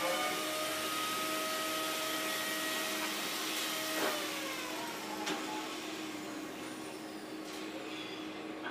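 Electric power tool motor running with a steady whine that winds down in pitch about four seconds in, with a couple of sharp knocks as it slows and a hiss throughout.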